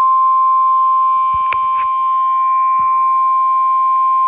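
NOAA weather radio warning alarm tone: a loud, steady single-pitched tone of about 1050 Hz, held unbroken. It announces that an emergency warning message is about to follow. A few sharp clicks and knocks come about a second and a half to three seconds in.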